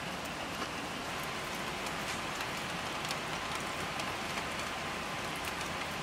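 Steady rain falling, an even hiss with scattered drops ticking.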